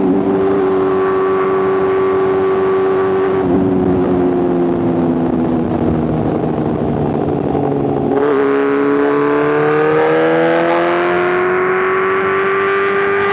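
BMW S1000RR's inline-four engine through a titanium exhaust, running at steady revs, then easing off so the pitch slowly sinks. A little past halfway the throttle opens and the revs climb for a couple of seconds before holding steady.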